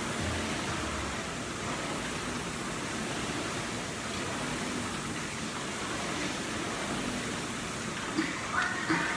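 Air-resistance rowing machine's fan flywheel making a steady rushing whoosh as it is rowed hard. A few sharper, louder sounds come in near the end.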